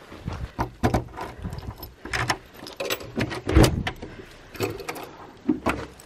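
Keys jangling and a door lock clicking as a door is unlocked and opened, with footsteps on frosty ground.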